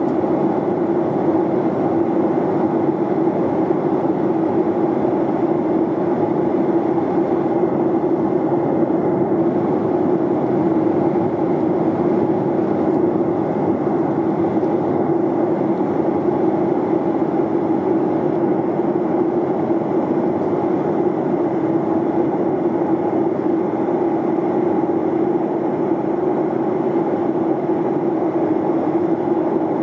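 Boeing 737-800 cabin noise in flight: the steady rush of airflow over the fuselage and the drone of its CFM56-7B turbofans, with a constant hum at its centre and no change throughout.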